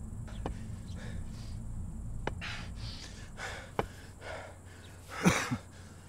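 A few sharp, scattered taps of a walking cane and footsteps on a concrete floor, then a person's short, heavy breath about five seconds in.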